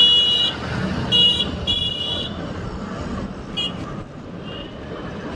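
Vehicle horn honking in traffic: a long high-pitched blast that stops about half a second in, then two short honks, with fainter short toots later. Under it, the steady noise of a moving scooter and road traffic.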